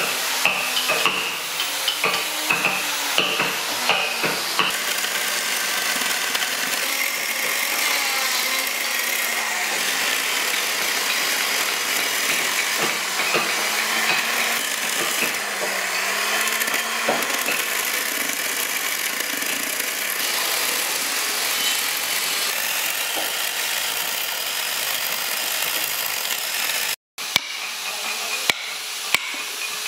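Chainsaw cutting slots into a log, its motor pitch dipping and rising as the chain bites into the wood. Near the end, several sharp knocks as the wood between the cuts is chipped out with a chisel.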